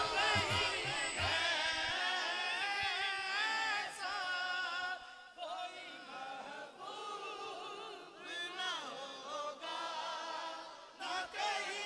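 A group of men singing a naat line together, unaccompanied and off the microphone, so the voices sound distant. The singing grows softer about halfway through.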